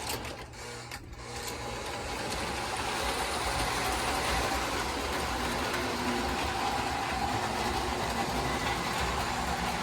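Lionel O-gauge model train starting off and running around the track: a few clicks in the first second, then a steady mechanical whir of the motor and wheels that builds over about three seconds and holds.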